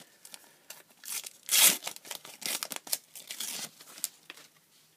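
A paper sticker packet being torn open by hand, its wrapper tearing and crinkling in a run of rustles from about a second in, the loudest tear coming soon after.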